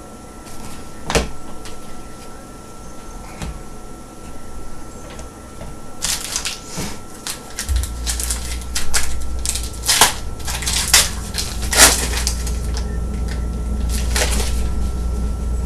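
Trading card packs being handled and torn open: plastic-foil wrappers crinkling and crackling, with a few sharp clicks early and a dense run of crackles in the second half. A low steady hum comes in about eight seconds in.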